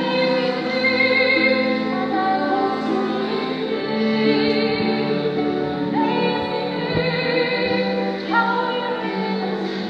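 A woman singing a slow song at a microphone, accompanied by cello and harp, with long held notes; new sung phrases begin about six and about eight seconds in.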